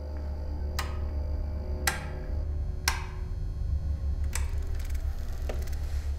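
Five sharp clicks of metal toggle switches being flipped one after another, about a second apart, over a deep, steady hum.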